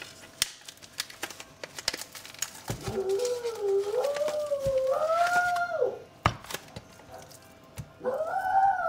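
A dog howling: one long wavering cry that rises and falls for about three seconds, then a shorter howl near the end. It is an upset dog.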